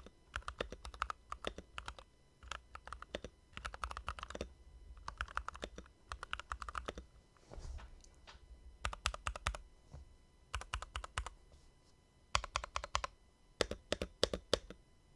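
Typing on a Keychron V2 mechanical keyboard with its stock switches, in quick runs of keystrokes about a second long with short pauses between them.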